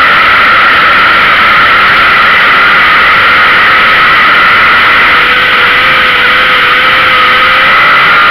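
Street stock race car's engine running at racing speed, heard loud and steady from a camera on the car's rear deck, mixed with a steady rushing noise.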